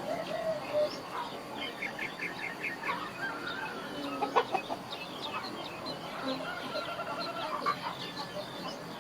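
Chickens clucking and calling, many short overlapping notes, with a quick run of evenly spaced clucks a couple of seconds in.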